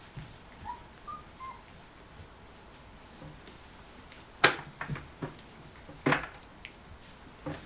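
Young golden retriever puppies at play: a few faint, high little whimpers in the first second and a half, then several short, sharp sounds later on, the loudest about halfway through.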